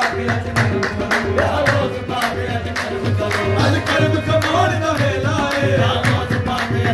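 Qawwali music: harmoniums and a lead voice singing a wavering melody, with the group clapping several times a second over a steady low beat.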